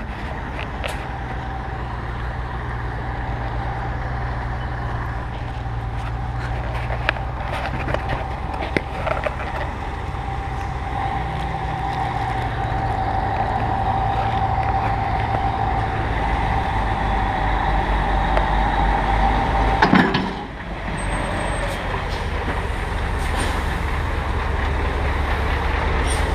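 MAZ truck's diesel engine running steadily with a whine that slowly grows louder. About twenty seconds in, the sound dips sharply for a moment, then the engine carries on.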